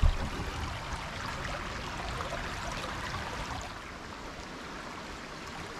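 Shallow creek water trickling and running over stones, with a low thump at the start. About two-thirds of the way through the water sound drops to a quieter, steady background.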